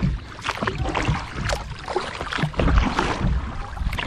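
Kayak paddle strokes, the blades dipping and splashing in the river again and again.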